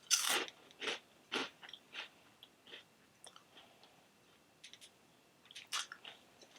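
A crunchy lobster-and-corn flavored snack being bitten and chewed: a loud first crunch, then smaller crisp crunches that thin out, with a few more near the end.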